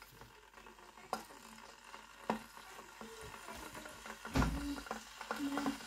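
Glass electric kettle heating a small amount of water and starting to rumble: a faint hiss with scattered ticks and crackles as bubbles begin to form, a sign the repaired kettle heats again. A dull knock about four and a half seconds in.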